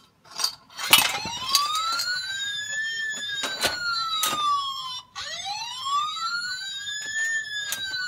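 Electronic alarm siren of the Douwin F750S fingerprint lock, starting about a second in and wailing in slow rising-and-falling sweeps of about four seconds each. Sharp clicks from the mechanical key and lever handle being worked come through it, four or five in the first half.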